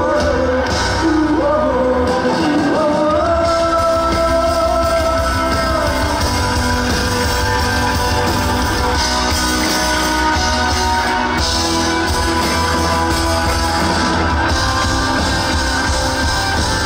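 Live rock band with a singer: a sung line ending in one long held note, then the band plays on with guitars.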